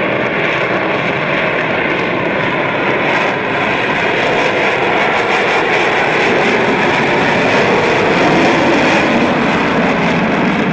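F-22 Raptor's twin Pratt & Whitney F119 turbofans in afterburner on the takeoff run and lift-off, a loud, steady jet roar that swells slightly as the jet climbs away past the camera.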